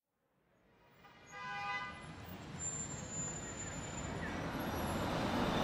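Street traffic noise fading in from silence and growing steadily louder, with a car horn sounding once, briefly, about a second and a half in.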